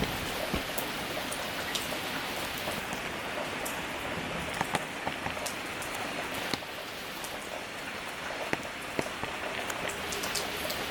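Steady rain falling, with many separate sharp drop impacts on hard surfaces.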